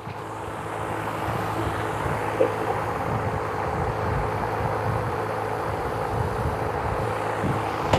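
Air compressor running steadily, a hissing drone with a low hum that builds over the first second and then holds level, as the tank refills after the air was used to blow out the fuel tank.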